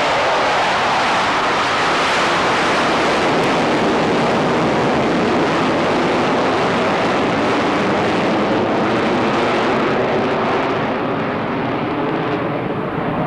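Avro Vulcan bomber's four Olympus turbojets, a loud, steady jet noise as it passes low overhead, losing its high hiss over the last few seconds as it draws away.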